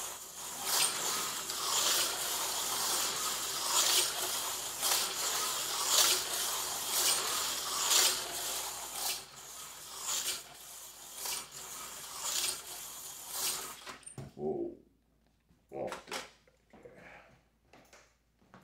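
Aurora slot car running laps on a small oval track: a steady electric whirring and rattle with a louder clatter about once a second as each lap comes round, then it stops suddenly about 14 seconds in. A few light knocks follow as the car and controller are handled.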